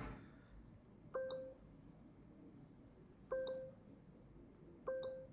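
A short electronic beep, a click followed by a brief low tone, repeated three times about two seconds apart over faint hiss.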